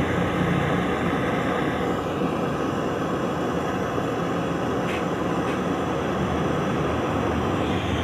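Handheld gas torch flame hissing steadily while it heats the copper refrigerant pipes at a refrigerator compressor for brazing.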